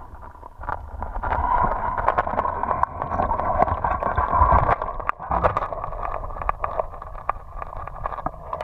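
Muffled rushing and gurgling of stream water heard through a submerged camera, with scattered clicks and knocks.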